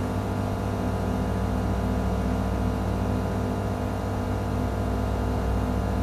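Steady machine hum with several held tones over a faint airy hiss, from equipment running in the room, with no change through the stretch.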